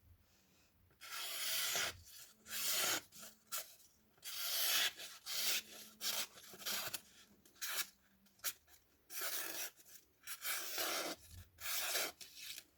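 A freshly sharpened folding knife's blade slicing through a sheet of paper: a run of about a dozen dry, papery hissing cuts of varying length, a paper-cutting test of the edge's sharpness.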